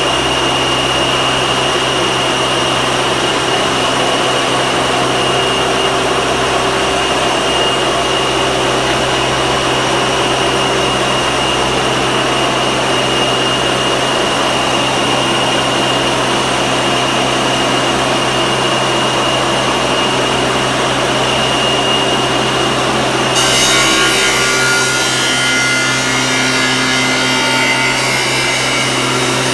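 Robotic grinding and cutting cell deburring metal castings: steady grinding and cutting noise from the tool spindle, with a constant high whine over a low hum. About 23 seconds in the whine stops and the cutting sound changes.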